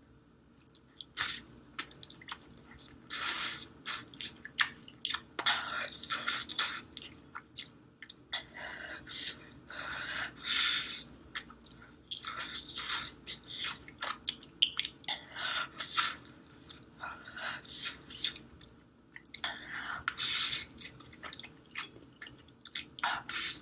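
Close-miked eating: wet chewing and mouth sounds in irregular bursts, the noises of someone eating food up close to the microphone.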